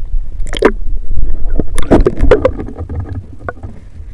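Water sloshing and splashing around a camera held at the sea surface, with a steady low rumble and several sharp splashes in the first half. It turns quieter and muffled as the camera goes under near the end.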